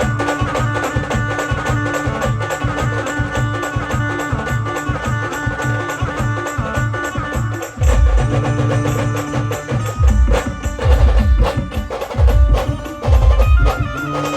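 Live band music: a held melody runs over a fast, steady percussion beat. About eight seconds in, heavy bass drum hits come in, and they return in clusters toward the end.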